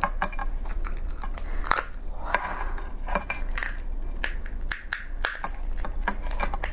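Raw crab's shell cracking and crunching as it is pried apart by hand and the top shell pulled off the body: a close, irregular run of sharp clicks and snaps.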